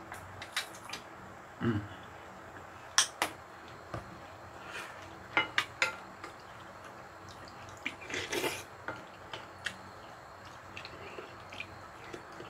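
Eating utensils clinking and clacking against bowls and dishes during a meal, in scattered sharp clicks with a denser run of clatter about eight seconds in.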